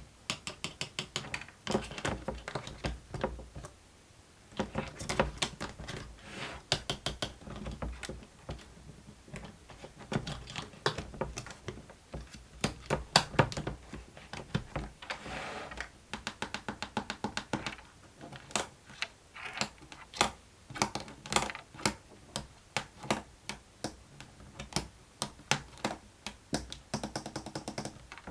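Fidget board toy being handled: runs of quick, sharp plastic clicks and taps, several a second, broken by short pauses.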